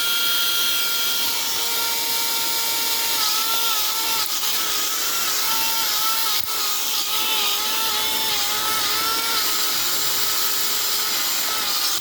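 Wall-climbing RC stunt car's small electric suction fan running steadily, a whirring hiss with a high whine that wavers slightly in pitch.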